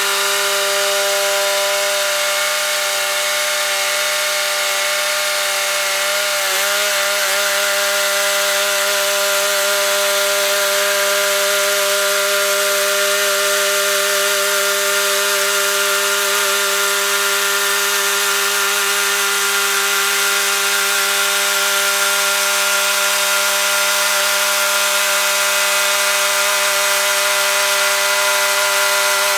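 Mighty Mite bandsaw mill running steadily, its blade sawing lengthwise through a large Alaska yellow cedar log. The motor's pitch wavers briefly about six seconds in, then holds steady.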